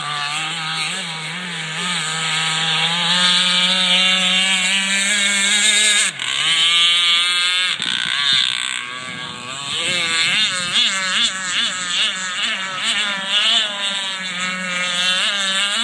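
Radio-controlled mono-hull race boat's motor running at high speed, a steady droning whine that climbs slightly in pitch. It breaks off abruptly about six seconds in, and later wavers quickly up and down in pitch.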